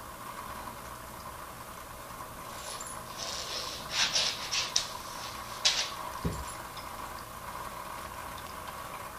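Plastic bag crinkling and crackling in a few short bursts under a kitten's paws as it shifts about, loudest around the middle, followed by one soft low thump. A steady aquarium hum runs underneath.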